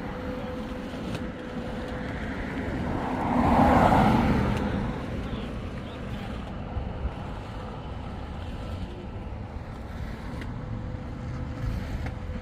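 Road traffic: a steady low rumble of vehicles, with one vehicle passing loudest about four seconds in.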